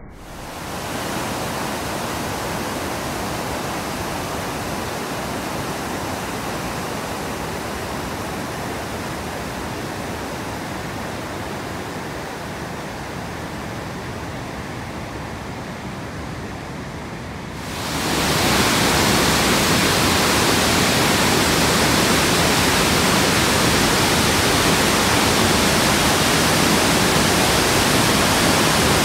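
Steady rushing of a large waterfall's water, with no rhythm or distinct events. About two-thirds of the way in it cuts to a louder, fuller and brighter rush that holds steady.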